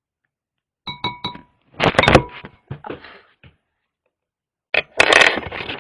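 A spoon knocking and clinking against a bowl as cornstarch is scooped, with short ringing tones after the first few knocks and two louder bursts of scraping and rustling, one about two seconds in and one near the end.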